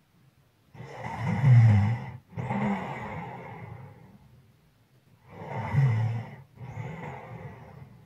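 A sleeping person snoring, two breaths about four seconds apart. Each is a loud, low snore followed, after a short break, by a softer breath that fades away.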